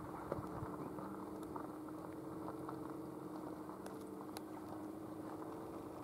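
Steady low drone of a distant engine, with a few faint sharp ticks scattered through it.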